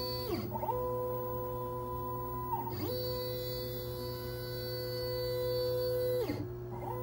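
Shapeoko 3 CNC router's stepper motors whining with steady pure tones as the gantry moves. Three times the pitch slides down and back up as a move slows, changes and speeds up again, over a steady low hum.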